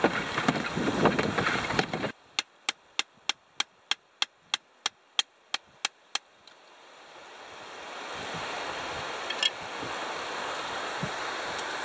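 Two seconds of dense noisy sound cut off suddenly, then a run of evenly spaced sharp ticks, nearly four a second, over near silence. A steady wash of surf and wind then fades in, with a click and, near the end, a knock as an oyster knife chips a rock oyster off the rocks.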